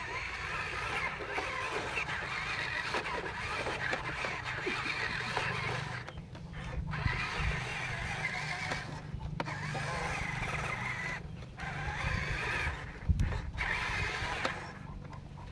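Huina 1573 radio-controlled dump truck's electric drive motor and gears whining as it drives slowly over dirt, cutting out and starting again several times.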